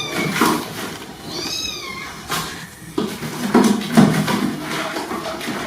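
Kitten meowing in short, high-pitched arching calls, one right at the start and a longer one about a second and a half in, amid scattered clicks and knocks.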